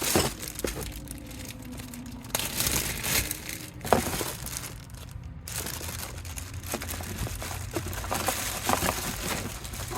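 Plastic packaging crinkling and rustling as the fridge's cables are unpacked and handled, with a few sharp knocks, the loudest about four seconds in.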